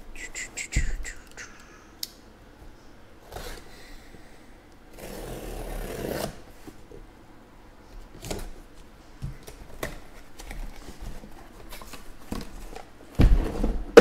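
A cardboard case sealed with packing tape is opened by hand: the tape is slit and peeled, and the cardboard is handled with scattered clicks. A longer tearing rasp comes about five seconds in, and a loud thump near the end.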